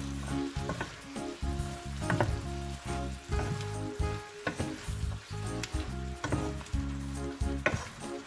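Vegetables and shrimp sizzling as they are stir-fried in a hot nonstick pan, stirred and tossed with a wooden spatula. Every second or two there is a sharp knock or scrape of the spatula against the pan.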